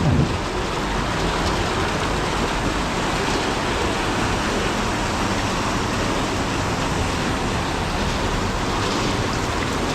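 Heavy tropical rain pouring onto a flooded street: a steady, unbroken hiss of rain and floodwater.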